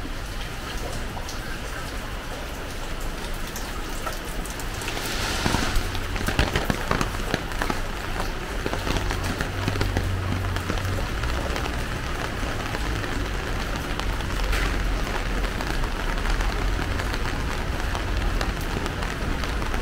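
Steady rain falling and pattering on surfaces, a fine continuous hiss with scattered drop ticks, with a brief louder spattering about five seconds in.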